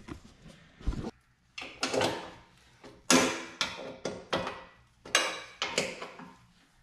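Several sharp metal clanks and knocks, each ringing briefly, as mower deck parts and tools are handled.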